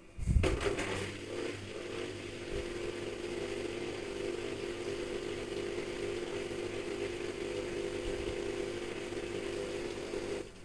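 Toshiba inverter washer-dryer starting up and running: a loud start just after the beginning, then a steady motor hum and whir with a few held tones, which cuts off suddenly just before the end.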